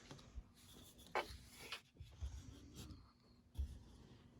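Faint rustling and light handling of trading cards, with a few soft knocks.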